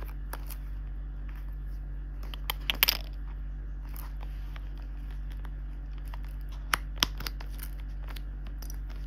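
A small quilted leather Chanel flap card holder being handled: soft rustling with sharp little clicks of its metal hardware, the turn-lock clasp and chain, a cluster about three seconds in and two more near seven seconds, over a steady low hum.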